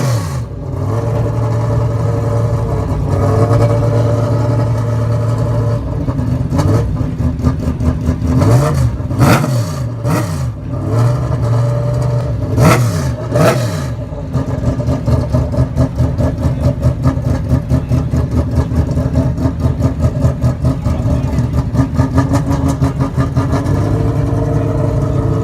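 Ligier JS P3 race car's V8 engine idling and being blipped: about six quick, sharp revs that rise and fall in the first half, then a lumpy, pulsing idle.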